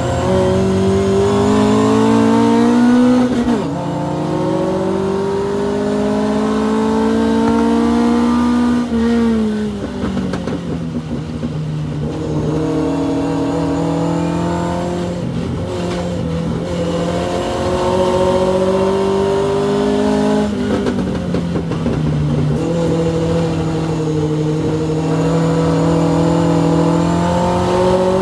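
Hillman Avenger race car's four-cylinder engine, heard from inside the car, pulling hard and revving up under acceleration. The pitch dips briefly about 3.5 s in, falls away around 9 s as the driver lifts off, then climbs again with another gear change about 20 s in.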